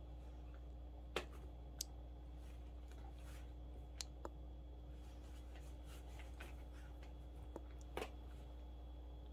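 Small dog gnawing on plastic over-ear headphones: faint scattered clicks and ticks of teeth on plastic, over a low steady hum.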